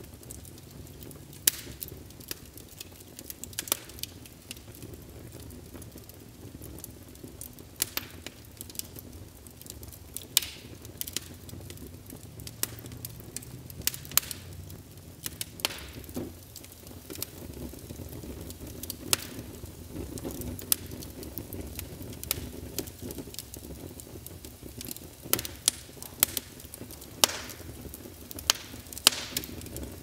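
Crackling fire: irregular sharp pops and snaps, a few every couple of seconds, over a steady low rumble.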